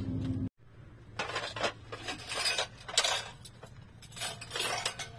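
A steady hum cuts off about half a second in. Then dishes and cutlery clink and scrape in a string of irregular clatters, loudest about three seconds in.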